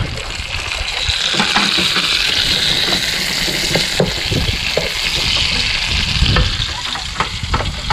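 Diced Spam with onions and garlic sizzling in a frying pan as sliced tomatoes and bell peppers are added, with a wooden spatula scraping and stirring. The sizzle swells about a second in and eases near the end.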